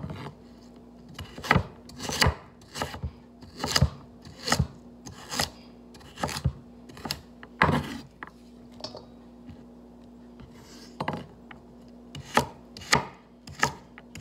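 Knife chopping vegetables on a cutting board: single chops about one or two a second, pausing for a couple of seconds midway before resuming.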